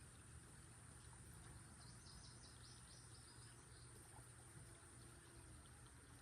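Faint outdoor quiet with a short bird trill of about ten quick, slightly falling notes about two seconds in, over a steady high whine.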